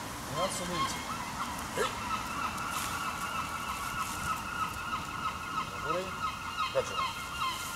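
Birds calling: short, scattered, squawking calls. A steady high tone starts about two seconds in and cuts off near the end.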